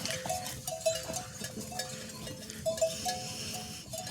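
Metal bells clanking and ringing irregularly, in the manner of bells on grazing livestock, with small knocks between the rings.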